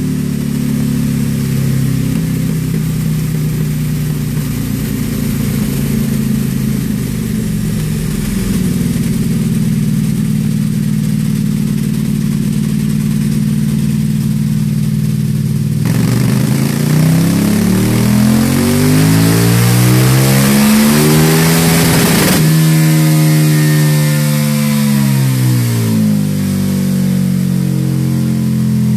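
KTM 1290 Super Duke R's V-twin engine with an Akrapovic silencer, running on a rear-wheel dyno. It runs steadily at low revs, then a little past halfway it opens up into a dyno pull that rises in pitch for about six seconds. The pull is cut off sharply and the revs fall back to a steady low idle.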